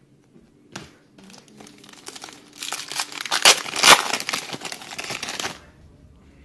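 Wrapper of a football trading-card pack being torn open and crinkled by hand: a light click near the start, then about three seconds of crinkling from about two and a half seconds in.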